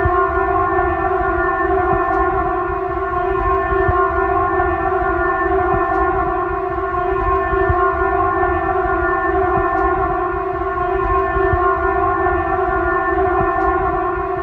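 Civil defence warning siren sounding one long, steady tone with no rise or fall in pitch, over a low rumble of background noise.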